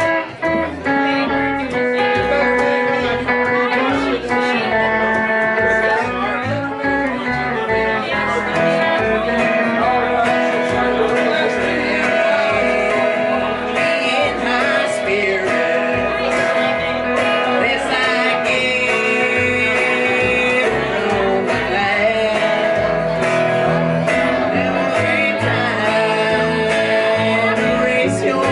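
Live country band playing: electric guitar, acoustic guitar and plucked upright bass keeping a steady beat.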